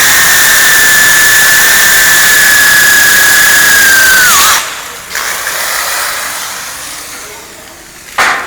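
Electric drill spinning an ultra-thin abrasive cutting disc, cutting through steel: a loud grinding hiss with a high whine that slowly sags in pitch, then dips and cuts off about four and a half seconds in. A short sharp clack comes near the end.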